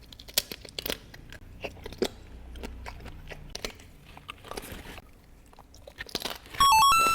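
Close-up chewing of prepared cannonball jellyfish: a run of irregular crisp crunches as it is bitten and chewed. Near the end comes a short electronic jingle of stepped beeping tones.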